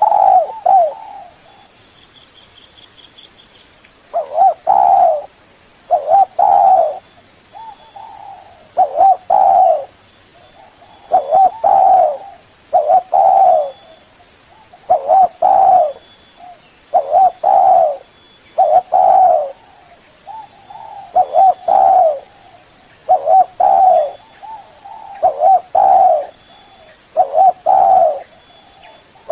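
Spotted dove cooing over and over. Short phrases of a few coos come about every two seconds, after a pause of about three seconds near the start. This is the tekukur call used to lure rival doves.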